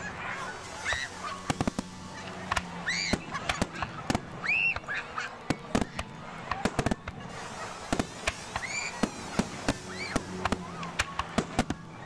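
Aerial fireworks shells bursting in quick succession, a dense run of sharp bangs and crackles. Several short high-pitched calls that rise and fall sound over them.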